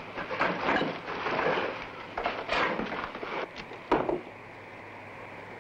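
Clatter and knocking of things being handled, with one sharp knock about four seconds in. After it, only a steady low hiss.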